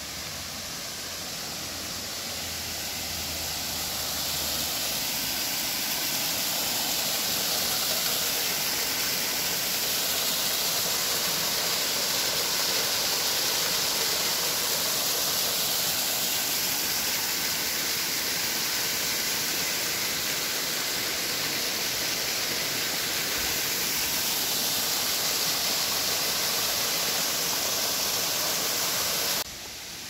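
Steady rush of water from a small waterfall and rocky mountain stream. It grows louder over the first several seconds, holds, and drops off suddenly near the end.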